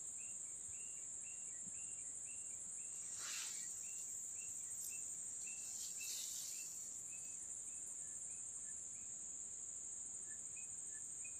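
Steady high-pitched insect buzz, typical of crickets in grass, with a lower short chirp repeating about two to three times a second that grows sparser later on. Two brief rustles come about three and six seconds in.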